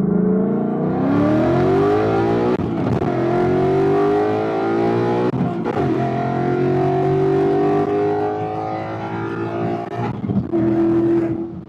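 2019 Mustang Bullitt's 5.0-litre V8 with long-tube headers accelerating hard at full throttle: the pitch climbs, drops back at an upshift about two and a half seconds in, climbs again, drops at a second upshift about five and a half seconds in, and climbs once more before the driver lifts off near the end. It is a street test pull on a new 93-octane tune.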